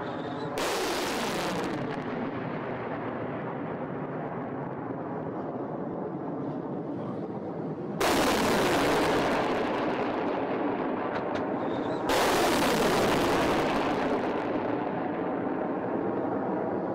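Three surface-to-air missile launches, each a sudden blast of rocket motor roar that fades slowly as the missile climbs away. They come about half a second in, eight seconds in and twelve seconds in.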